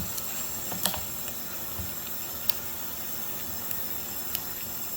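A handful of sharp plastic clicks over a steady hiss: a vinegar bottle's screw cap being twisted open.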